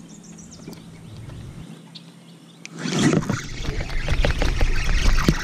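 Faint ticks at first, then about three seconds in a loud rush of water splashing with knocks against the boat as a hooked bass thrashes at the surface.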